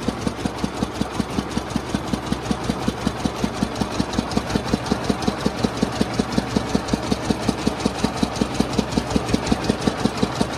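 Engine of a motorised sugarcane juice cart running steadily at idle, with an even pulse of about five beats a second.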